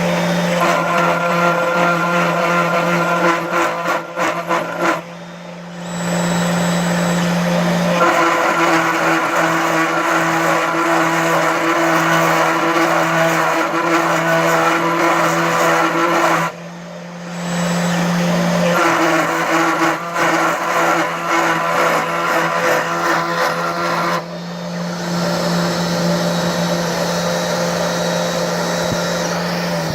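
Small CNC milling machine cutting metal: the spindle runs with a steady whine while the cutter chatters through the workpiece in long passes. The cutting noise stops twice for a few seconds between passes.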